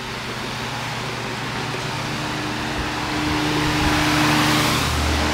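Steady mechanical hum under a rushing hiss that swells louder in the second half and peaks about four seconds in.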